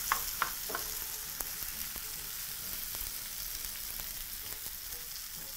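Tilapia and tomato masala sauce sizzling steadily in a frying pan over a gas flame, with a few sharp clicks of a spoon against the pan in the first second.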